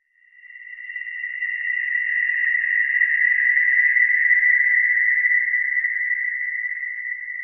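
Eerie metallic horror sound effect: a single high, steady ringing tone, like scraped or bowed metal, that swells in from silence over a couple of seconds and then slowly fades, with faint scratchy ticks under it.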